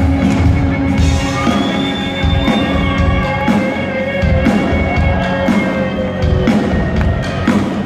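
Live rock band playing an instrumental passage in a large hall: drums, a bass line changing note about once a second, and guitars, under a high held melody line that slides between notes.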